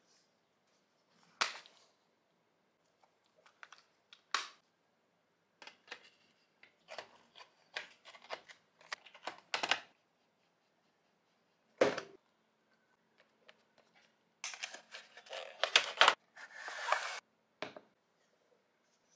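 Hard plastic items handled close up: sharp clicks and taps of plastic game cases and a case holder, spaced a second or more apart, then a couple of seconds of rustling and scraping plastic near the end as a plastic dispenser bottle and its pump are picked up.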